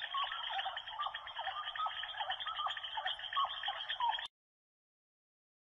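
Background nature ambience: a dense chorus of many short chirping animal calls, cutting off abruptly about four seconds in, then silence.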